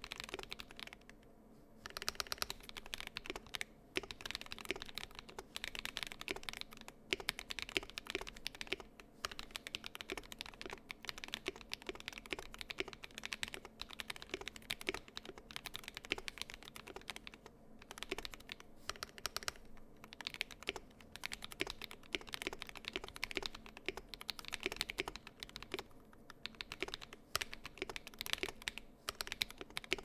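Typing on an Ikki68 Aurora custom mechanical keyboard with Akko Matcha Green switches, an aluminium plate and Traitorkeys Kabuki keycaps: a fast, continuous run of keystroke clacks. It is broken by a few brief pauses, one about a second in.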